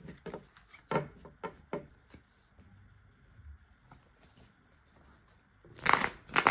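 Tarot cards being handled and shuffled: scattered soft clicks and taps of the cards, then a louder burst of shuffling near the end.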